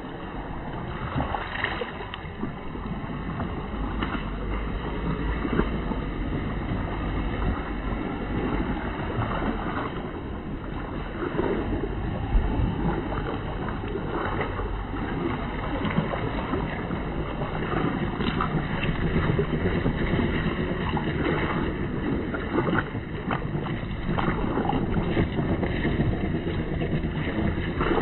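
RC scale crawler truck driving through a shallow rocky stream and out onto gravel: water sloshing and stones crunching and clicking under its tyres. Wind buffets the microphone.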